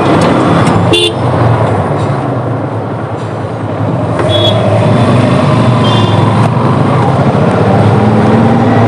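Motorcycle riding in slow city traffic: steady engine and road noise with several short horn toots. An engine note rises slowly near the end.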